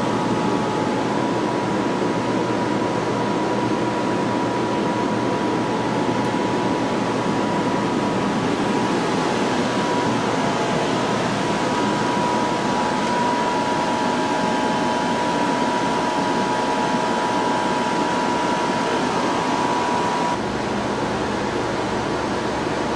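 Steady hum and hiss, like room ventilation or equipment fans, with a faint steady whine; the sound changes abruptly near the end.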